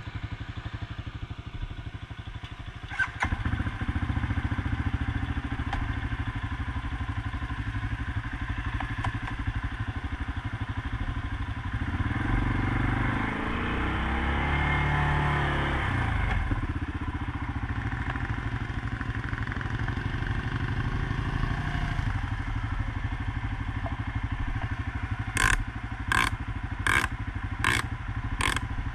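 CFMoto CForce 500S ATV's single-cylinder engine running, picking up about three seconds in as the quad moves off, revving up and easing back down in the middle, then running steadily. A few sharp clatters come near the end.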